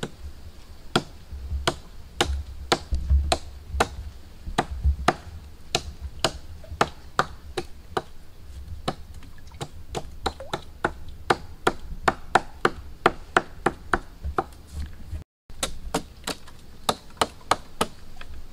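A long series of sharp chopping strikes from a hand tool, about two to three a second and slightly uneven, with a brief dropout near the end.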